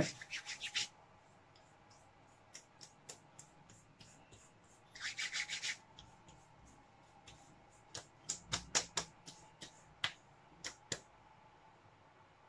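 A hand rubbing over freshly shaved skin and beard close to the microphone: short scratchy strokes in a few clusters, near the start, about five seconds in, and several more around eight to eleven seconds.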